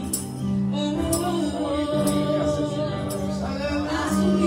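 Worship music: long held chords with a voice singing a slow, wavering melody over them.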